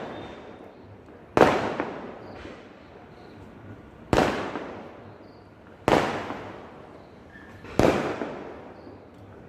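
Sky shot aerial fireworks bursting: four sharp bangs about two seconds apart, each trailing off over about a second.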